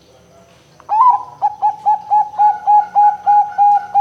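Zebra dove (perkutut) cooing: about a second in, a rising opening note, then a quick run of short, evenly spaced coos, about four a second.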